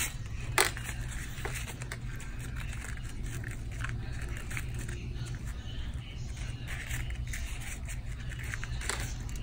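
Grosgrain ribbon rustling and thread being drawn through it as the ribbon loops are hand-sewn together, with scattered soft rustles and ticks over a low steady hum. A single sharp click about half a second in, as something is set down on the table, is the loudest sound.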